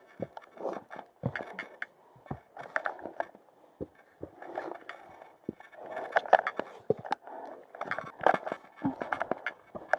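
Hiker's footsteps and clattering gear: irregular clicks, knocks and scrapes at an uneven pace.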